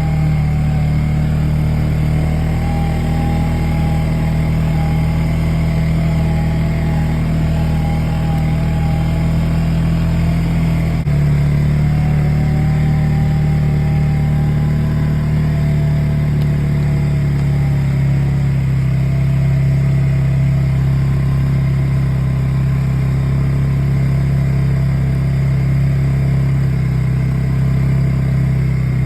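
Polaris quad (ATV) engine running at a steady speed, with an abrupt change about a third of the way in, after which the pitch sits slightly lower.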